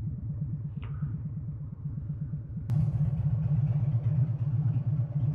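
Harley-Davidson V-twin engine idling with an even, pulsing beat. A sharp click comes about two and a half seconds in, and the engine is louder after it.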